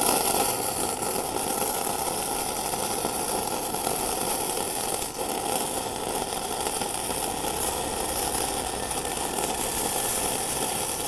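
Gasless flux-cored MIG welding arc from a TOPGUN MIG-315VS welder, crackling steadily without a break as it lays a bead on 30 mm steel plate, set to about 150 A and 19.5 V.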